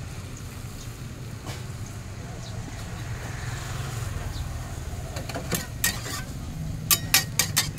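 Steady low roar under a small aluminium wok on a gas burner while an omelette fries. From about five and a half seconds a metal spatula clacks and scrapes against the pan, speeding up to several quick strokes a second near the end.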